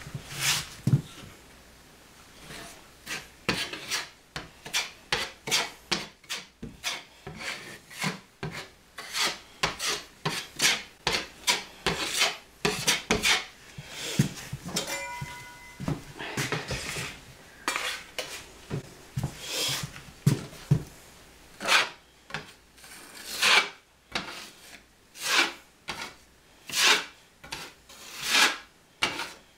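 Drywall knife scraping pink spackle onto a patched hole in a drywall wall: a long series of short rasping strokes, about one to two a second, with brief pauses between passes.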